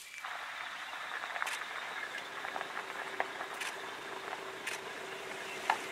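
Steady outdoor bush ambience: an even hiss, with scattered light clicks and a faint steady hum through the middle.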